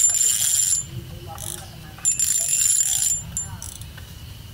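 Small spinning fishing reel being cranked in two bursts of about a second each, a high-pitched whir from its gearing as the line is wound in.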